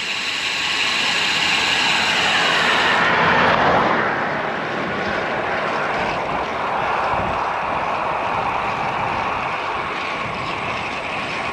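Wind rushing over the microphone on a moving road bike. A vehicle passes about three seconds in, swelling and then dropping in pitch as it goes by.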